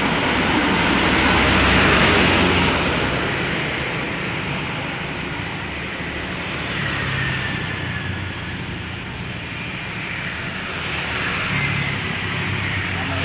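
A large bus's diesel engine runs with a steady low hum under a loud wash of vehicle noise. The noise swells for the first couple of seconds, then eases off.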